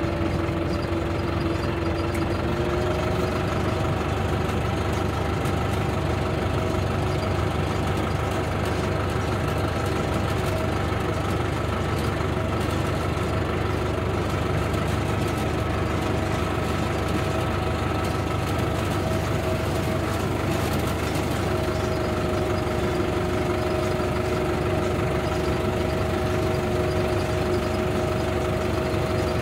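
Farm tractor engine running steadily while the tractor drives, heard from the driver's seat. Its pitch steps up slightly a few seconds in and again past the middle.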